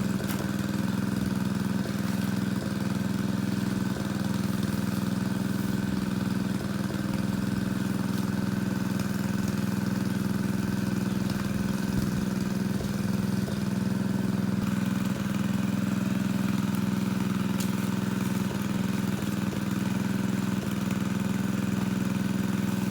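Engine of a water pump running steadily at a constant speed while pumping out a fish pond.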